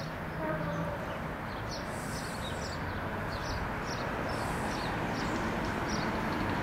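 Class 73 electro-diesel locomotive approaching slowly on its diesel engine, a steady low rumble, as the exhaust smoke shows. Birds sing over it throughout, in many short falling chirps.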